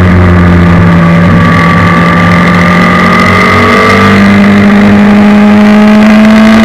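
Suzuki Hayabusa 1300 inline-four motorcycle engine in a race car, heard onboard and running hard. Its pitch sags a little, then rises steadily from about halfway through as the car accelerates.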